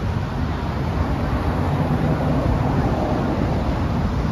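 Steady low rumble of road traffic on the bridge's car roadway, with no single event standing out.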